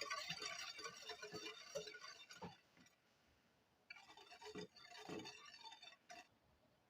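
A whisk clicking rapidly against the side of a bowl as it beats a vinegar, sugar, salt and pepper brine. The whisking stops for about a second partway through, then resumes.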